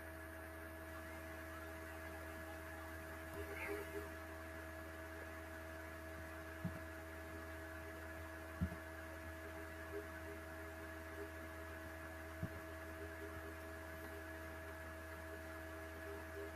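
Steady low electrical hum with a few faint, isolated clicks.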